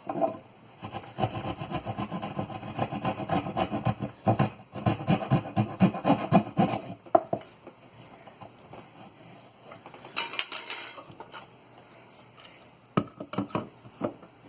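Hand work cutting into pine log siding: a run of rapid, rough strokes for about seven seconds, then a short rasp and a few sharp knocks near the end.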